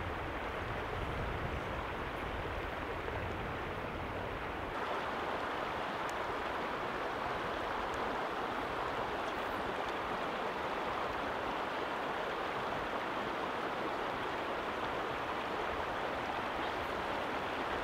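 Shallow river riffle running steadily over rocks. About five seconds in, a low rumble under it falls away and the hiss of the water grows brighter.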